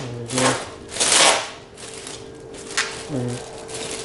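Clear plastic shrink-wrap film crinkling and rustling in several short bursts as it is pulled and folded against the sides of a cardboard firework box.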